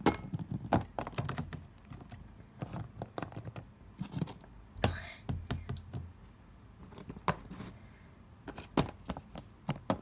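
Irregular light clicks and knocks of small plastic toy figurines being handled and moved about on a surface.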